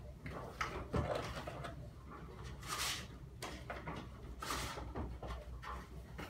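Unpacking noises from a hard plastic tool carry case: a knock about a second in, light clicks and taps, and two short sliding swishes of papers being drawn out, around three and four and a half seconds in.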